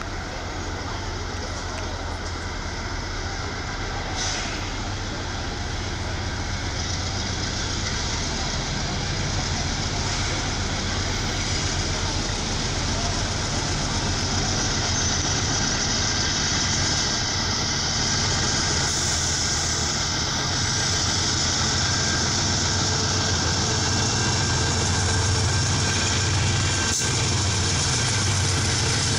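Diesel-electric freight locomotives rumbling past, the engine drone slowly growing louder, with steel wheels rolling on the rails.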